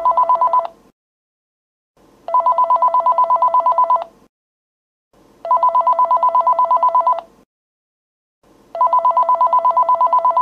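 Telephone ringing with a fast electronic trill: the end of one ring, then three more rings of under two seconds each, about three seconds apart.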